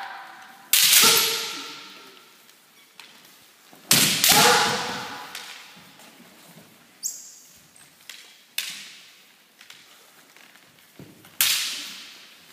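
Kendo bout: sharp cracks of bamboo shinai strikes and foot stamps on the wooden floor, echoing in a large hall, with a drawn-out high kiai shout right after the strike about four seconds in. Three big strikes in all, with lighter shinai clacks between them.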